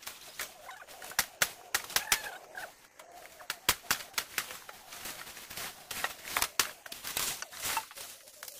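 Irregular sharp cracks, snaps and clacks of cut bamboo poles and dry bamboo brush being handled and shifted, several a second, with faint bird calls behind.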